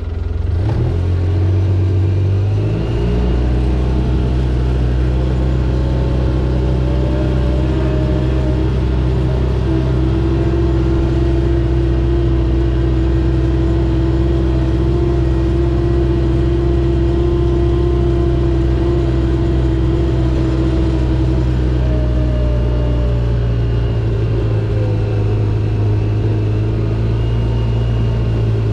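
A vehicle engine running steadily and loudly, its pitch climbing a little over the first several seconds and easing back down near the end.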